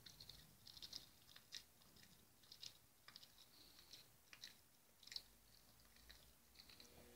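Faint, irregular crunching and clicking of a Shih Tzu chewing a meat-covered chew stick.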